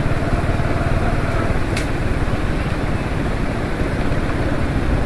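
Motorcycle riding noise: a steady low engine and road rumble with wind on the microphone, and one brief sharp high click a little under two seconds in.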